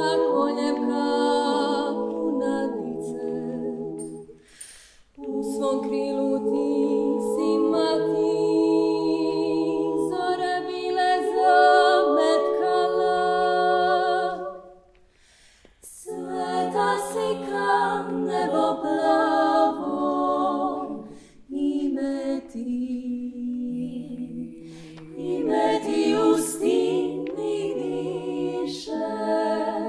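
A female klapa of seven voices singing a cappella in close harmony: sustained, slow phrases of Dalmatian-style multi-part song, broken by short breath pauses about 5, 15 and 21 seconds in.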